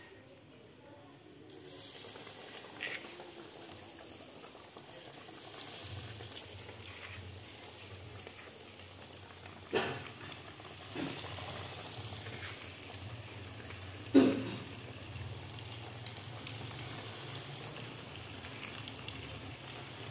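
Breadcrumb-coated chicken pieces frying in hot oil in a pan: a steady sizzle that starts about a second and a half in. A few sharp knocks come over it, the loudest about two thirds of the way through.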